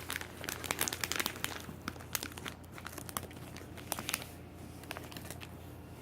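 Plastic snack packaging crinkling and crackling as it is handled, in quick irregular crackles that thin out after about four seconds.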